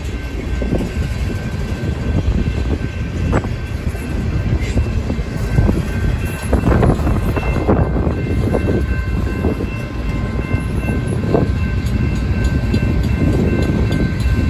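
Freight train cars rolling past close by: a steady heavy rumble with irregular clanks and clacks of wheels over rail joints. A grade-crossing bell rings faintly and steadily in the background.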